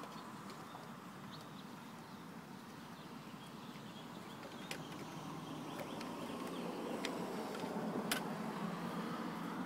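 Grass-catcher bag being refitted to a Lawn-Boy mower with the engine off: the bag handled, with three sharp clicks of its frame, the last and loudest near the end as it seats. Faint birdsong in the background.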